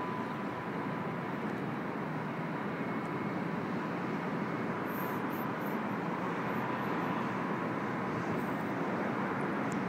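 Steady rushing hum of distant city traffic with a faint steady tone.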